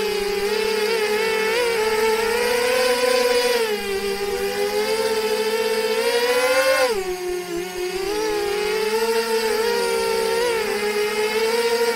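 FPV quadcopter's motors and propellers whining in flight, the pitch wavering with the throttle, dropping sharply about seven seconds in and then climbing back.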